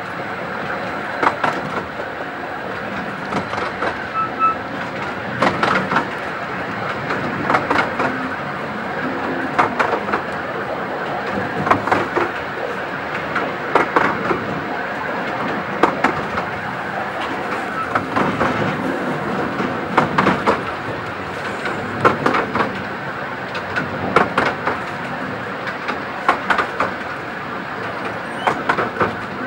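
Miniature railway carriage (12¼-inch gauge) running steadily along the track, with a sharp clack from the wheels over the rail joints about every two seconds.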